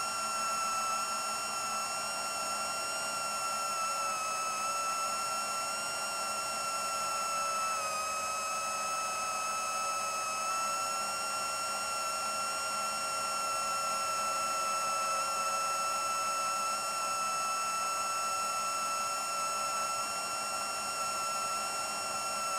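FPV quadcopter's Racerstar 2514 1498KV brushless motors spinning HQProp 7040 propellers, heard from the onboard camera: a steady high whine in cruise, dipping slightly in pitch now and then.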